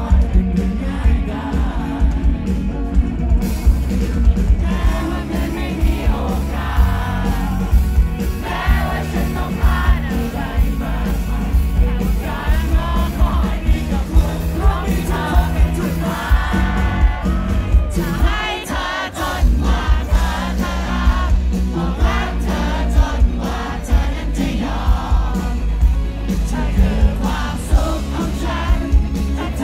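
Live pop band playing with a male lead vocalist singing, heard from the audience: drums, bass and keyboards keep a steady beat under the melody, and the bass drops away briefly about two-thirds of the way through.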